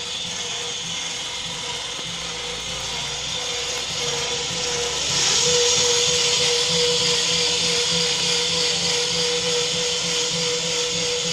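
Electric motor of a battery-operated sugarcane bud cutting machine running steadily with a whine and hiss, getting louder about five seconds in.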